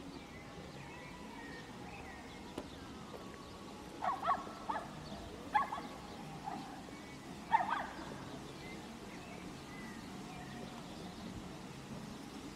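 Open-air city plaza ambience: a steady low murmur of distant traffic and voices. About four seconds in it is broken by a run of about six short, sharp calls over some four seconds, the loudest sounds here.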